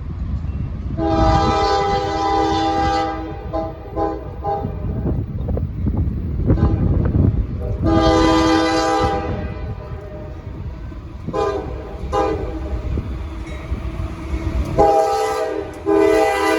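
Lead GE AC44C6M locomotive's multi-chime air horn sounding a playful series: a blast of about two seconds, a few quick toots, a shorter blast, two brief toots, and a longer blast starting near the end. Under it runs the low rumble of the passing freight train.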